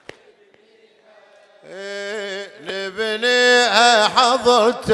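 A man chanting a latmiya, a Shia mourning chant, holding long ornamented notes whose pitch glides up and down. He comes in after about a second and a half of quiet and grows louder toward the end.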